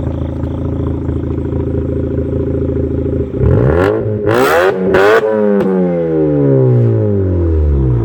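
2004 Mazda RX-8's 6-port Renesis rotary engine through an axle-back straight-pipe exhaust, loud at a steady idle, then revved once a little over three seconds in. The pitch climbs quickly, with a couple of brief harsh bursts at the top, and falls back slowly toward idle over the last few seconds.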